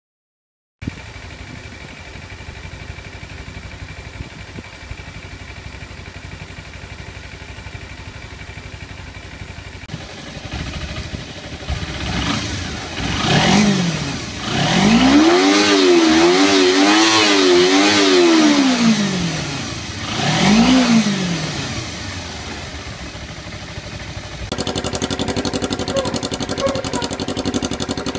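Kawasaki Ninja 250R parallel-twin engine idling through its stock exhaust, blipped once, then revved and held for about four seconds with the pitch rising and falling, then blipped again. Near the end a cut brings a louder, rawer idle, which fits the bike running with no exhaust fitted.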